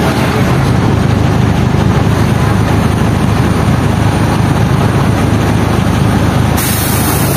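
Cabin noise of an Ikarus articulated bus under way: the diesel engine running with a steady low rumble and road noise. A short hiss starts near the end.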